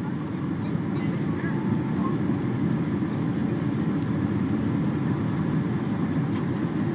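Steady airliner cabin noise heard from a passenger seat during the approach to landing: engine and airflow noise, even and unbroken, heaviest in the low range.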